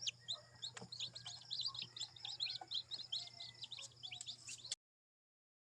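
Faint, rapid chirping of birds: many short, high, downward-sliding notes overlapping one another, over a low steady hum. It cuts off abruptly near the end.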